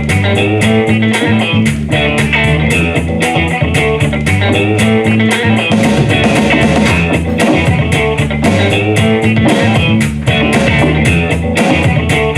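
Instrumental music led by guitar, with bass and drums keeping a steady beat.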